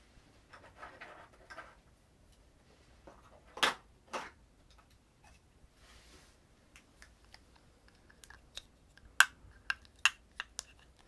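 Soft rustling and two brief swishes of movement, then from about eight seconds in a run of sharp, irregular clicks and taps as a small white plastic case is handled close to the microphone.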